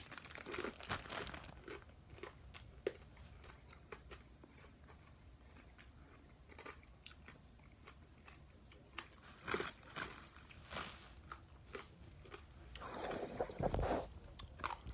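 A person biting and chewing chicharon, crispy pork back-fat cracklings, close up. The crisp crunches come in bursts several seconds apart.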